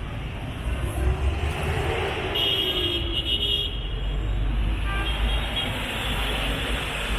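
Road traffic running steadily with a low rumble, and a short horn toot about two and a half seconds in.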